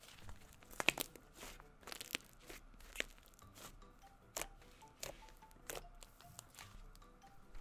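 Cloud slime being stretched, pulled apart and poked by hands, giving a string of irregular soft crackles and pops.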